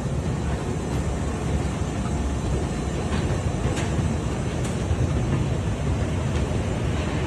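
Curved slat-plate conveyor of the baggage-carousel type running: a steady mechanical rumble from the moving plates and drive chain, with a few faint clicks in the middle.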